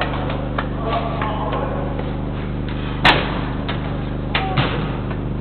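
Football being kicked and thudding around an indoor five-a-side pitch: a few sharp knocks, the loudest about three seconds in. They sit over a steady electrical hum, with faint shouts from players about a second in.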